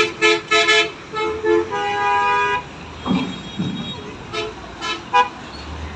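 Road vehicle horns honking: a quick run of short toots, then a longer honk about two seconds in, and a few more short toots near the end, as buses and trucks load onto a river ferry.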